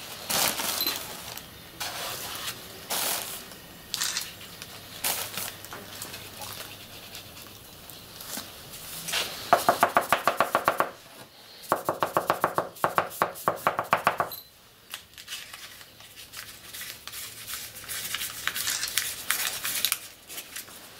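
A paper firework tube being hand-filled and tamped on a workbench: scattered knocks and rustling from the tube, wooden rammer and powder bag. About halfway through come two runs of fast, ringing taps, about ten a second.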